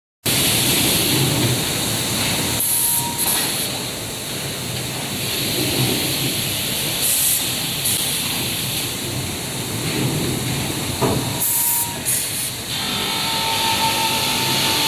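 Fiber cement board cutting and grinding machinery running, a steady hissing machine noise with a few short, sharper hisses. Guitar music comes in near the end.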